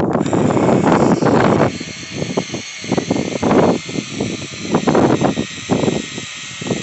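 Wind buffeting the microphone, heavy for about the first second and a half and then in irregular gusts. Under it runs a faint, steady high whine, fitting the motors of a radio-controlled excavator working its way up an icy, snowy slope.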